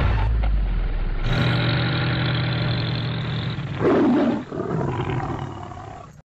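Tiger roar sound effects: a long drawn-out roar, then a louder, shorter roar about four seconds in. The sound fades and cuts off abruptly just before the end. A low rumble runs under the first second.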